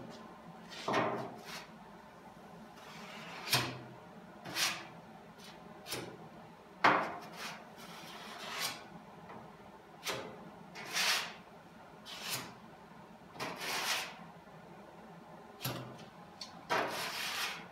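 Body filler spreader being swiped over a freshly applied first coat of filler on a steel car fender: about a dozen scraping strokes, one every second or two, with a longer drawn-out stroke near the end.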